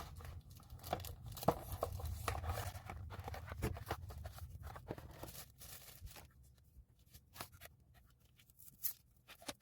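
Packaging being handled and unwrapped from a curling iron: rustling and tearing for about six seconds, then a few scattered light clicks and taps.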